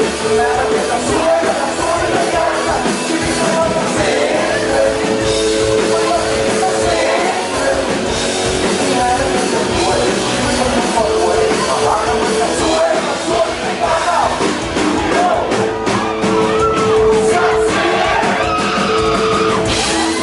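Loud live rock music with singing, the crowd singing along.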